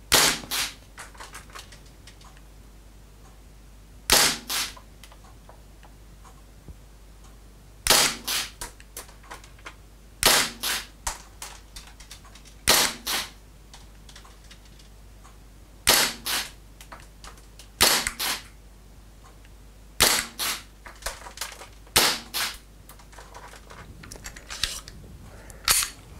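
WE G-Force G19 gas blowback airsoft pistol firing ten single shots, one every two to four seconds. Each sharp crack is followed by a few fainter clicks.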